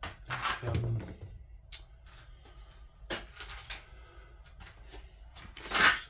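Handling noise at a workbench: rustling and light knocks as an aerosol can and small carburettor parts are picked up and moved, in three short bursts, the loudest a brief hiss-like rush just before the end.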